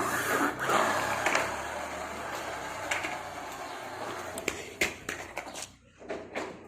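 Plastic toy vehicles being rolled and handled: a steady whirring rattle with sharp clicks and knocks, dying away about six seconds in.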